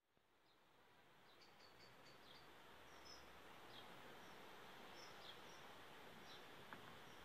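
Faint garden ambience fading in: a steady hiss of background noise with small birds chirping high, a quick run of chirps in the first couple of seconds, then single chirps about once a second.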